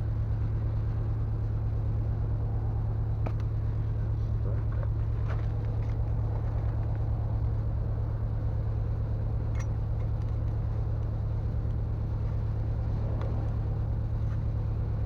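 A steady low machine hum with a fast, even pulse, like a running motor, with a few light clicks or clinks.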